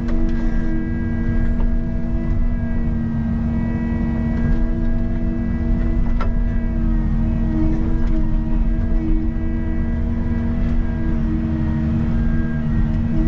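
Excavator's diesel engine running steadily, heard from inside the cab while the bucket digs. There is a single sharp knock about six seconds in.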